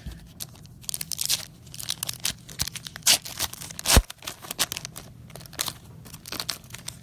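Plastic trading card pack wrapper being torn open and crinkled by hand: a run of crackling rips and rustles, with one sharp snap about four seconds in.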